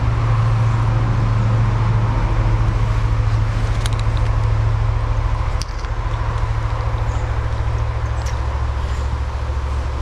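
Steady rushing of a small forest stream's flowing water, with a deep low rumble underneath and a few faint clicks.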